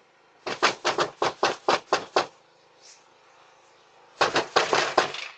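Someone knocking hard on a door: a run of about eight loud knocks, about four a second, then after a pause of two seconds a second, faster burst of knocks.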